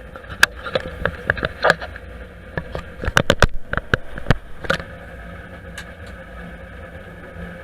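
New Holland CX8070 combine harvester running steadily in rapeseed, a constant machine hum, with a quick run of sharp clicks and knocks over the first few seconds that then dies away.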